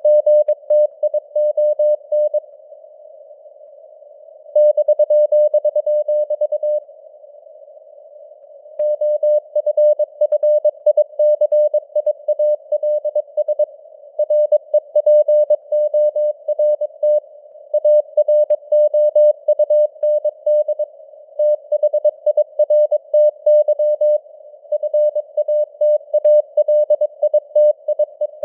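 Morse code sent at 22 words per minute as a single mid-pitched keyed tone, with a faint hiss of simulated radio noise around it between the characters. The sending pauses twice for about two seconds within the first nine seconds, then runs on steadily.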